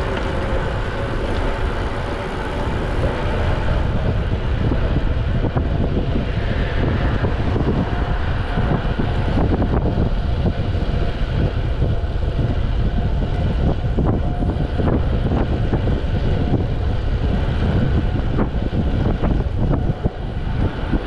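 Wind rushing over the microphone of a camera on a moving road bike, mixed with tyre noise on the asphalt: a steady, rumbling hiss.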